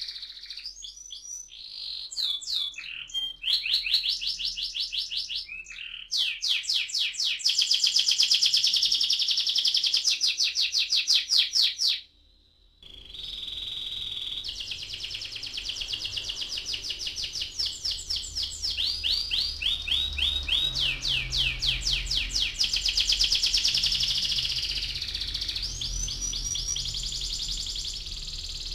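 Domestic canary singing its rolling song: long, fast trills of rapidly repeated high notes, one tour running into the next. The song breaks off abruptly about twelve seconds in and starts again within a second.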